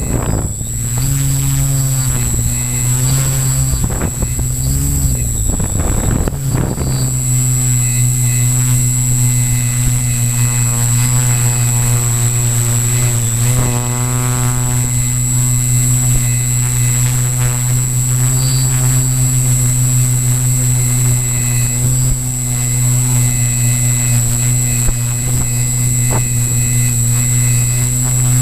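Zion EX700 multicopter's electric motors and propellers humming, heard through the onboard camera's microphone, with a constant high whine over it. The pitch wavers for the first several seconds, then holds steady as the craft hovers.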